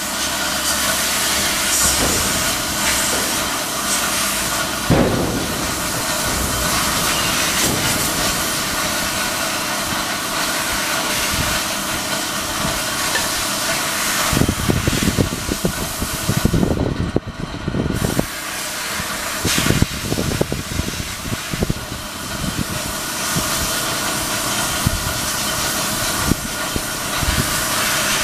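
Loud steady hiss with irregular low rumbling buffets, heaviest through the middle: wind noise on the camera's microphone.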